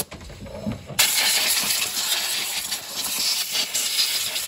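Compressed-air blow gun blasting in one steady, loud hiss that starts suddenly about a second in, blowing debris off the intake manifold bolts and its mating surface with the cylinder head.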